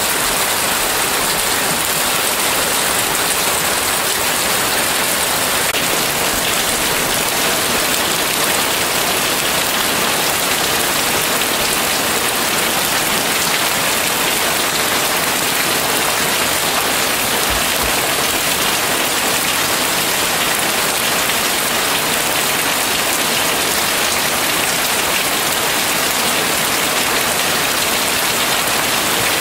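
Heavy rain falling steadily on a wet paved driveway and into puddles, an even, unbroken hiss of drops.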